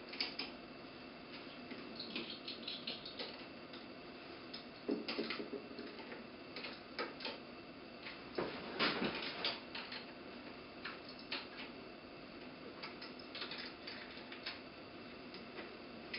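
Faint, scattered metal clicks and taps of a nut being tightened by hand with a wrench on a micro-hydro turbine's lever-mounting bridge, with a few louder knocks about five and nine seconds in.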